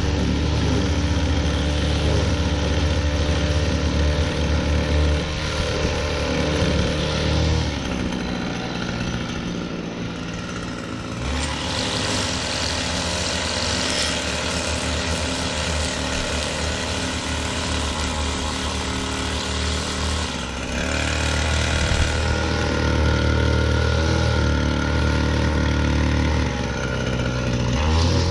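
String trimmer running steadily as its spinning line cuts grass along a concrete path edge. A louder, rushing stretch of cutting noise runs through the middle, for about ten seconds.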